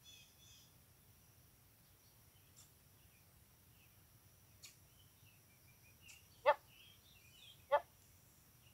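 Faint birds chirping in the open air. Two short, sharp sounds close by, one about two-thirds of the way through and another about a second later.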